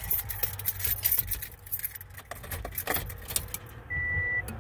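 A bunch of car keys jangling and clicking as a key is fitted and turned in the 2007 Subaru Impreza's ignition. Near the end the car's electronic warning chime gives one steady high beep.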